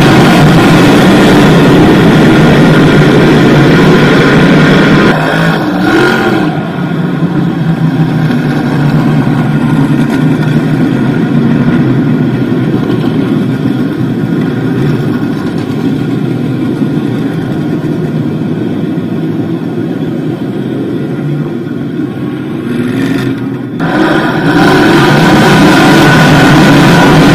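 A pack of small-block modified dirt-track race cars with V8 engines racing at full throttle past the turn. The sound is loud while the field goes by, drops to a duller, distant running as the cars go round the far side, and comes back loud near the end as the pack returns.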